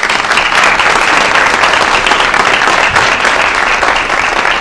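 Loud, steady applause: many people clapping their hands at once.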